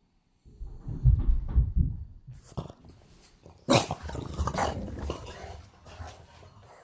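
French bulldog waking and jumping up from sleep: dog sounds mixed with low thumps in the first couple of seconds, a sharp sudden noise a little past the middle, and irregular movement noise after it.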